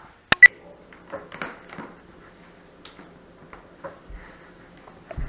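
Two sharp clicks in quick succession about half a second in, then faint scattered taps and rustling over a low steady hum.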